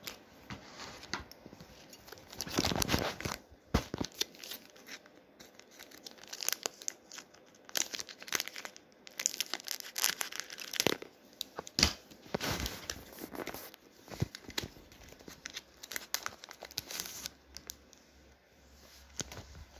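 Foil wrapper of a Pokémon trading card booster pack being torn open and crinkled, in irregular bursts of tearing and rustling.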